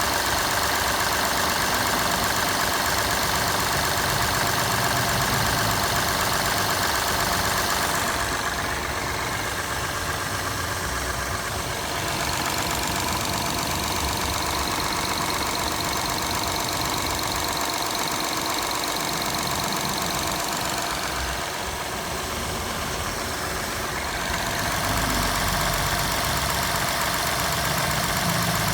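Car engine idling steadily during warm-up after a cold overnight start. It gets a little quieter twice, about a third of the way in and again past the middle.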